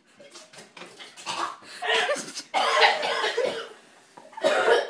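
Coughing and hacking in several fits, the loudest about two and a half seconds in, from choking on a dry mouthful of ground cinnamon.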